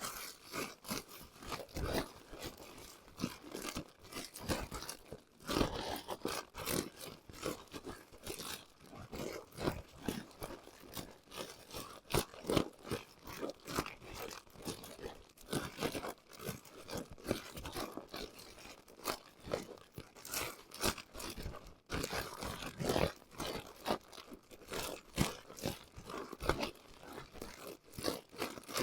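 Hands kneading a meatloaf mixture with dry stuffing crumbs inside a plastic bag: continuous, irregular crinkling and crunching of the plastic and crumbs.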